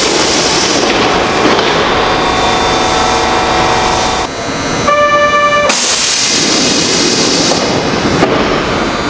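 Kintetsu 3200 series electric train running past, with steady motor and wheel noise and a short horn blast lasting under a second about five seconds in.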